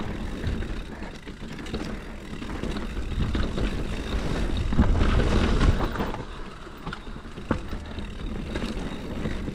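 Canyon Sender downhill mountain bike rolling fast down a dirt and stone singletrail: steady tyre noise and wind on the microphone, loudest about halfway, with a few sharp clicks and knocks from the bike over rough ground.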